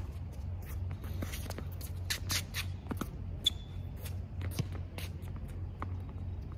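Tennis shoes scuffing on an outdoor hard court, with a short sneaker squeak about three and a half seconds in and a few sharp knocks of ball bounces and distant racquet hits.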